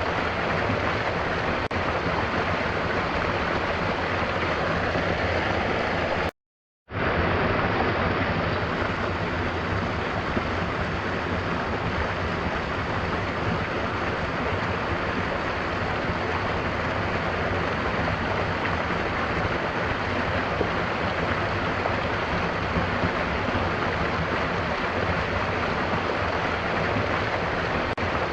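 Steady rushing of a waterfall mixed with gentle rain. The sound cuts out completely for about half a second a little over six seconds in, then resumes at the same level, a splice in the looped track.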